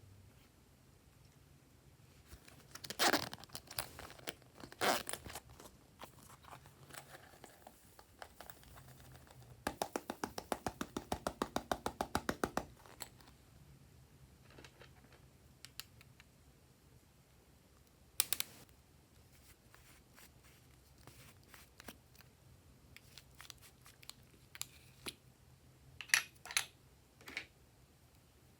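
Close-up slime play: slime and the things being mixed into it are handled, giving scattered sharp crackles and crinkles. About ten seconds in there is a fast, even run of little pops, about ten a second, for a couple of seconds.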